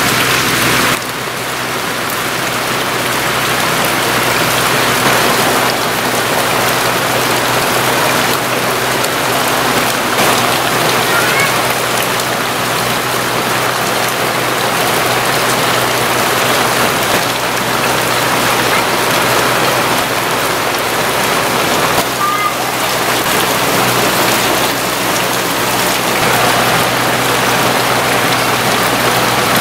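Steady rain falling, an even, dense hiss, with a faint steady low hum underneath.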